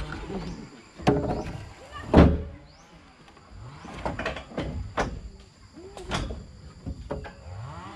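Acacia logs knocking and thudding against one another as they are stacked onto a loaded truck, a string of separate wooden knocks, the loudest about two seconds in.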